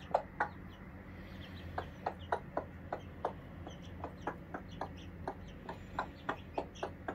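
Mother hen clucking in a quick run of short clucks, about three a second, while her chicks peep faintly and high-pitched between them.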